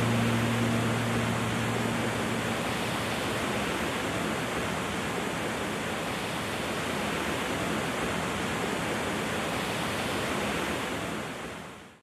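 Stream water rushing steadily over a boulder cascade, with the last held notes of background music dying away in the first couple of seconds; the rushing fades out near the end.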